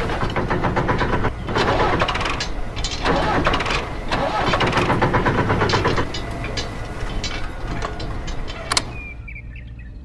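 Tractor engine running with a rough, clattering chug. It gets quieter about six seconds in and falls away near the end.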